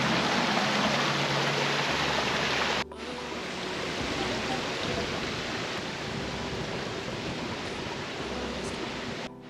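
Strong wind blasting over the microphone in a steady roar of noise, louder for the first three seconds, then cut abruptly to a somewhat quieter stretch of wind that runs until another cut near the end.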